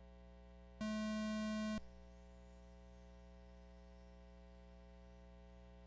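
RC race timing system's start tone: one buzzy electronic beep about a second long, starting just under a second in, signalling drivers to go. A steady electrical hum from the PA runs underneath.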